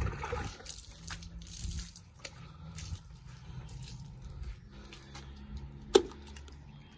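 A wet, soapy sponge squishing as it is rubbed over a Boxer dog's coat, with water dripping onto paving stones. A single sharp click about six seconds in.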